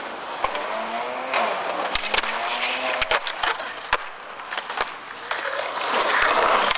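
Skateboard wheels rolling on concrete, with several sharp wooden clacks of the board popping and landing. The noise grows louder near the end.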